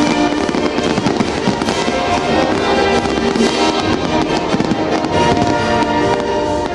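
Fireworks bursting and popping in quick succession, mixed with loud music from the show soundtrack.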